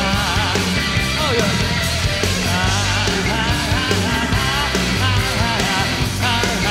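Live rock band playing, with a male lead singer's voice, its pitch wavering, over bass and drums.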